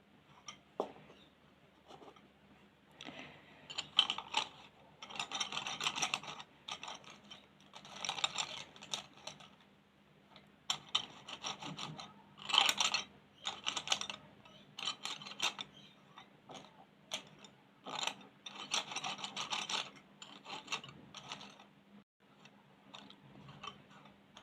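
Colouring strokes scratching on paper, in bursts of a second or two with short pauses between, over a faint steady hum.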